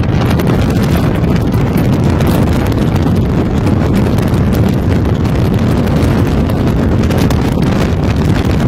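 Wind buffeting the microphone over the steady engine and road noise of a Ford Mustang convertible driven fast. The rumble is loud and unbroken.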